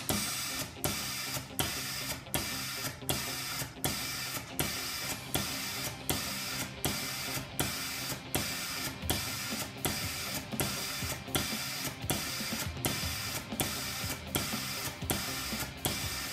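Blazer automatic maintenance unit for an aspirating smoke detector's sampling pipes running its cleaning cycle: an even, rhythmic pulsing of air and mechanism at nearly three pulses a second.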